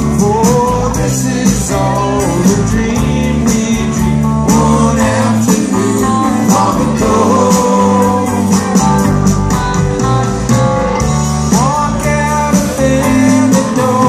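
Live rock band playing with guitars, bass, keyboards and drums, voices singing over it, recorded from within the audience.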